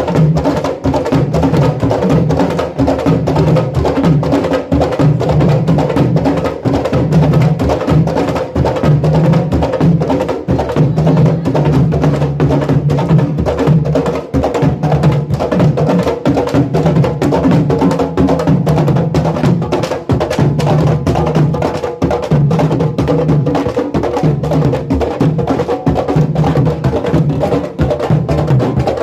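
Candombe drumming: an ensemble of tambores played with hand and stick, with fast clacks of sticks on the wooden drum shells over continuous low drum tones.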